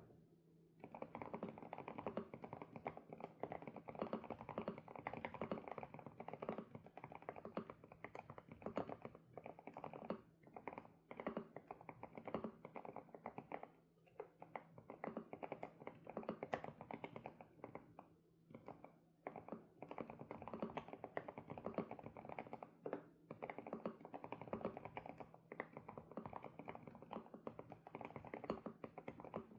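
Typing on an SPM PL108W mechanical keyboard with Sunset switches: fast, continuous keystrokes that start about a second in, broken by a few short pauses.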